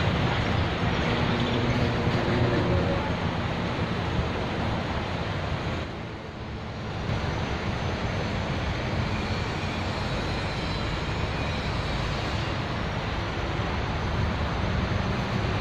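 Steady traffic noise, a continuous rumble and hiss, dipping briefly about six seconds in.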